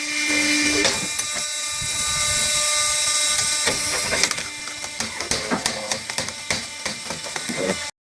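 Vertical log splitter at work: its motor runs with a steady whine of several tones, while blade strikes and splitting wood give many sharp clicks and cracks, thicker in the second half. The sound cuts off suddenly at the end.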